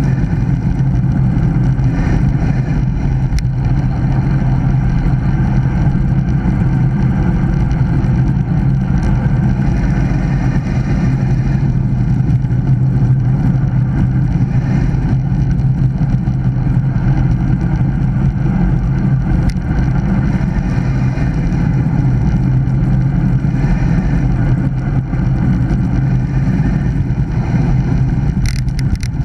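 Steady, loud wind rumble on the microphone of a bicycle-mounted action camera, from a road bike riding fast down a mountain road.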